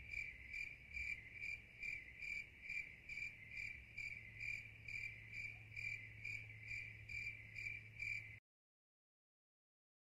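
A cricket chirping at night: an even, rapid rhythm of about two and a half short chirps a second, faint, over a low steady hum. It cuts off abruptly to silence near the end.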